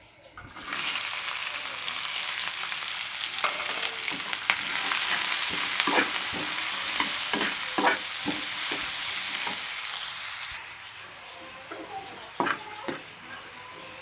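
Okra (bhindi) frying in hot oil in a pan: a steady sizzle starts about half a second in and drops off sharply about ten and a half seconds in. A spoon clinks and scrapes against the pan as the okra is stirred.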